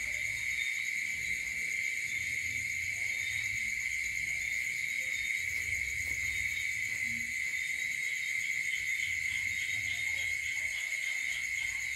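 Steady, continuous high-pitched chorus of night insects, with a faint low rumble underneath.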